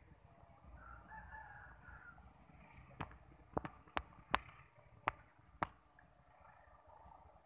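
A rooster crowing, faint, followed between about three and six seconds in by a quick run of sharp clicks, louder than the crowing.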